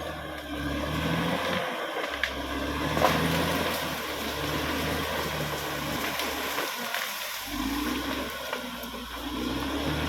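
Diesel engine of a Caterpillar D6R XL bulldozer running under load while clearing land, its low note dipping twice as the throttle eases, with a few sharp knocks and cracks over it.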